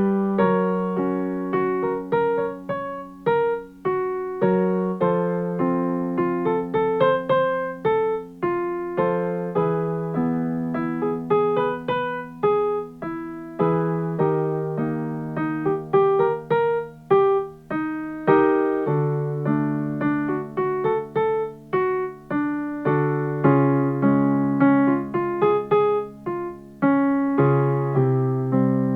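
Piano playing a vocal warm-up accompaniment: short runs of notes over held low chords, moving to a new key every four or five seconds.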